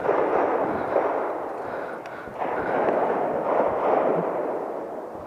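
A steady rushing noise, then a single sharp shot from an AR-15 rifle chambered in .300 Blackout right at the end.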